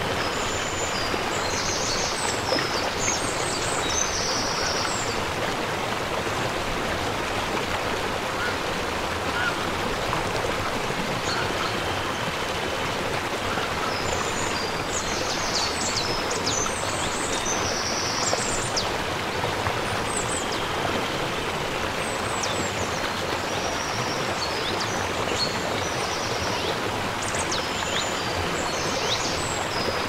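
Shallow mountain river running steadily over boulders and a small cascade: a constant rush of water. Clusters of short, high chirping calls come and go above it, near the start, in the middle and near the end.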